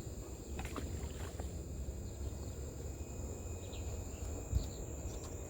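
Steady high-pitched drone of insects in a mangrove over a low rumble, with a few faint clicks.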